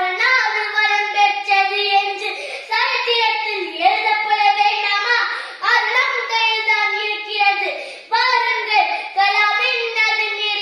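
A boy's voice declaiming loudly in Tamil in a high-pitched, sing-song delivery, running on with hardly a pause.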